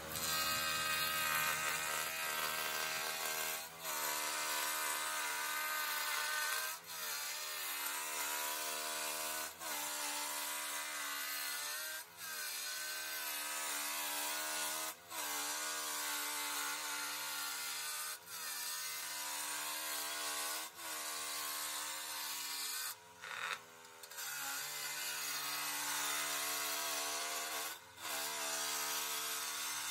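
Canary wood blank spinning on a wood lathe while a gouge cuts it from square to round: a continuous hiss of the tool shaving wood over the lathe's steady motor hum, broken by short gaps every two to three seconds.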